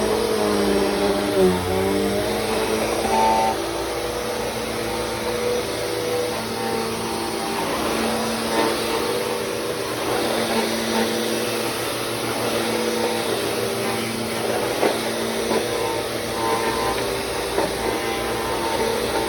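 Bissell CleanView 3536 upright bagless vacuum cleaner running while vacuuming, its motor hum steady apart from wavering in pitch in the first couple of seconds. A few sharp clicks break in now and then.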